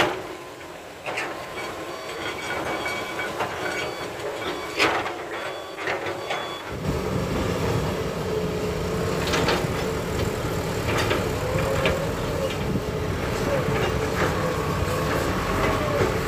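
Diesel engines of a hydraulic excavator and dump trucks running at an earth-loading site, with sharp clanks and knocks of the bucket and of rock and soil dropping into a steel truck bed. About a third of the way in the sound cuts to a fuller, deeper engine sound with a wavering drone.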